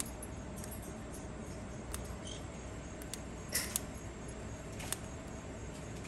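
Cockatiel biting and crunching a food pellet held in its foot: a few sparse, sharp clicks, the loudest pair about three and a half seconds in, over steady background noise.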